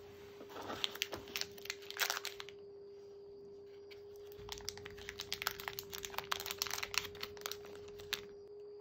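Crinkly plastic packaging being handled: the clear bags of leather-sewing needles and waxed thread crackle in two spells, one early and one through the second half.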